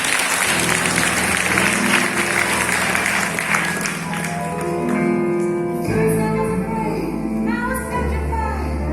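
Applause over music for roughly the first four seconds, then a song with singing comes through clearly.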